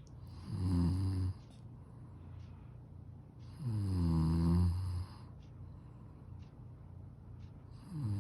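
A person snoring: three loud snores about three seconds apart, the last starting near the end. Each opens with a quick drop in pitch and then holds a low buzzing drone, the middle one the longest.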